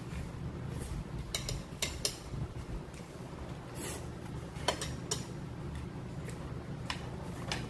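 Eating utensils clicking and scraping against dishes while eating, a dozen or so scattered light clicks over a steady low room hum.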